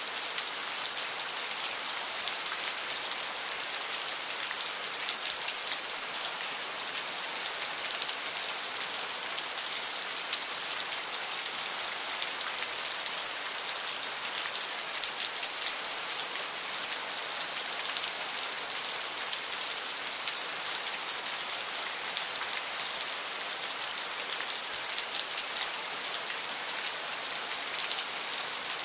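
Steady rain: a dense, even hiss of falling rain with many fine drop ticks, unchanging throughout.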